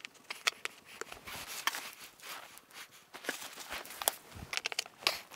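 Irregular light clicks and taps of mesh-backed glass mosaic pieces being handled and set down on a tile backer board, with a quick cluster of clicks about four to five seconds in.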